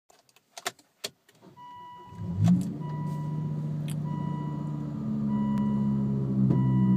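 2005 Volvo S40 T5's turbocharged five-cylinder engine starting: two clicks, then a short crank that catches about two seconds in and settles into a steady idle that rises a little near the five-second mark. A dashboard chime beeps repeatedly over it. The engine carries a random-misfire fault (P0300) that shows as the revs increase.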